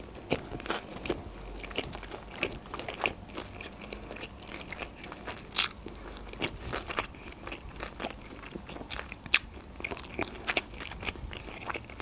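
Close-miked chewing of a large mouthful of sushi roll: a steady run of short, wet crunching and clicking mouth sounds. Two louder crunches stand out, one about halfway through and one a little over nine seconds in.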